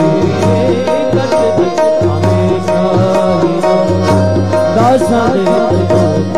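Instrumental bhajan music: a wavering melody line over sustained notes and a steady hand-drum beat.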